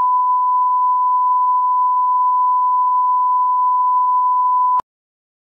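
Steady 1 kHz reference test tone, the line-up tone that goes with broadcast colour bars; one unbroken pitch that cuts off abruptly near the end.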